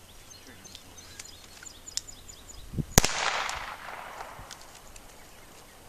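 A single shot from a Smith & Wesson 1911 Pro Series 9mm pistol, firing a 105-grain cast semi-wadcutter handload, about three seconds in. It is a sharp crack followed by an echo that trails off over a second or so.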